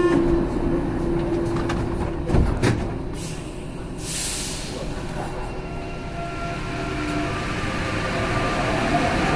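Paris Métro MP89 rubber-tyred train on line 4: a tone fades out at the start and a sharp thud comes about two and a half seconds in. A short hiss of air follows about four seconds in, then a whine that slowly rises in pitch over the running rumble as the train moves off.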